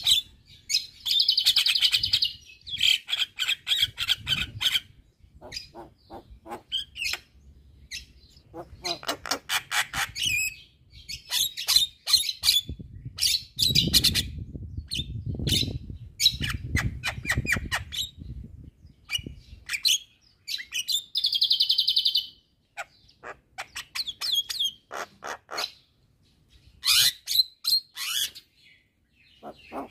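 Javan myna singing: runs of rapid chattering, sharp clicks and buzzy, rasping notes, each run a second or two long with short pauses between.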